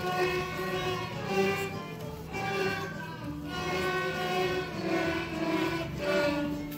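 Beginner elementary-school string ensemble of violins and a cello playing a simple tune in unison, in held bowed notes that change pitch every half second or so.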